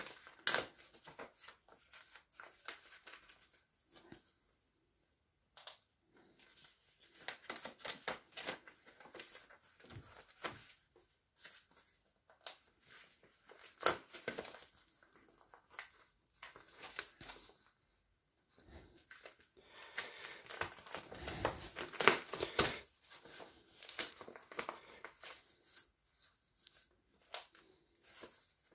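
Sheets of A4 office paper being leafed through by hand, rustling and crinkling in irregular bursts, with short crackles from pages torn and dimpled by .22 bullets.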